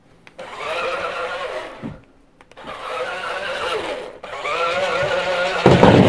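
Small electric motor of a homemade cardboard RC car whining in spurts, its pitch sliding up and down as it drives and stops. It cuts out twice briefly, and a louder, noisier burst comes near the end.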